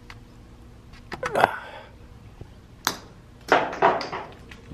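Handling noise of a new oil filler cap being readied over the engine's fill hole: a few short rustling scrapes, about a second in and again past three seconds, and one sharp click just before three seconds.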